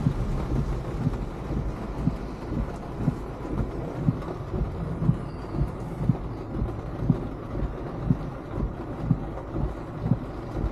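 Heard from inside a car driving in heavy rain: a steady rumble of road and engine noise under the hiss of the rain, with a low thump repeating about once a second.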